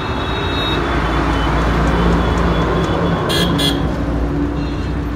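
Heavy road traffic passing close by: a truck's engine and tyres rumble past, swelling about two seconds in, with cars following. Two short high-pitched bursts sound about three and a half seconds in.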